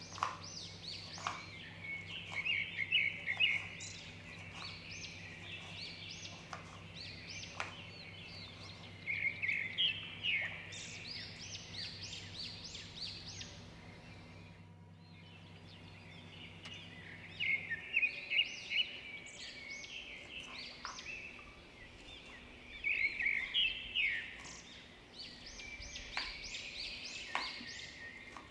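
Birds chirping in quick repeated series of calls, with a few sharp knife taps on a wooden chopping board as bitter gourd is sliced. A low steady hum stops about two-thirds of the way through.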